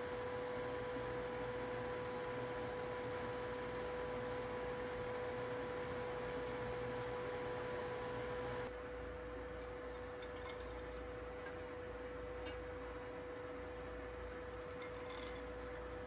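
Water boiling in a pot on an induction hob, bubbling under a steady electrical hum from the hob. About halfway through the bubbling turns quieter while the hum goes on, with a few faint ticks.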